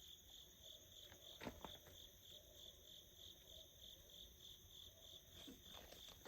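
Faint crickets chirping in a steady pulsing trill, about three pulses a second, with a soft knock about a second and a half in and light handling sounds near the end.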